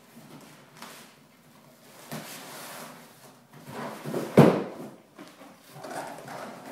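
Large cardboard shipping box scraping and rustling as it is slid up off a long inner box, with a loud thump of cardboard about four seconds in.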